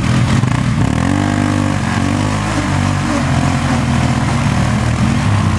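Quad (ATV) engine revving as the bogged quad tries to drive out of deep mud; the revs climb about a second in and then rise and fall.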